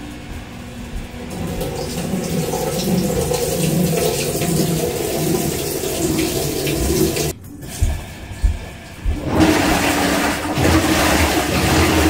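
Water spraying from the fill inlet into the drum of a Maytag Commercial Technology top-load washer as it fills on a regular cycle: a steady rushing, splashing hiss. The fill valves are open and the washer is taking in water. The sound breaks off briefly about seven seconds in, then the splashing goes on.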